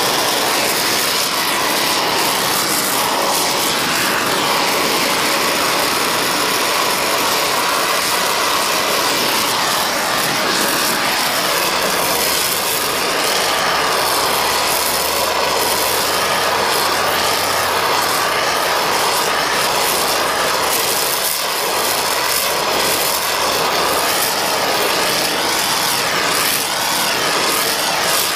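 Oxy-acetylene torch flame, turned up high, hissing steadily as it heats a cast iron part toward red for bronze brazing.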